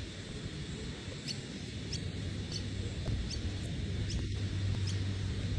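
Outdoor ambience: a steady low rumble with a faint, short, high chirp repeating about every two-thirds of a second.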